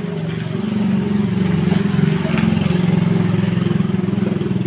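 A small engine running steadily at idle, its low pulsing hum rising and falling slightly in speed.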